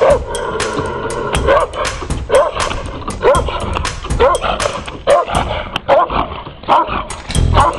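Caucasian Shepherd dog barking repeatedly, about one bark a second, over background music with a steady beat.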